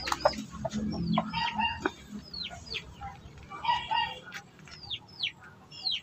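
A flock of backyard chickens clucking and calling, with many short, high calls that fall in pitch and a few lower clucks mixed in.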